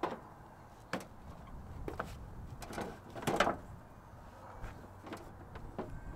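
A few irregular knocks and clunks, roughly one a second, the loudest about three and a half seconds in.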